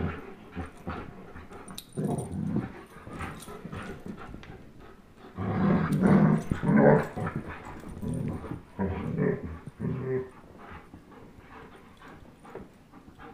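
Play growling from a German Shepherd and an Old English Sheepdog tugging on a rope toy, in several bursts that are loudest about halfway through and die down near the end.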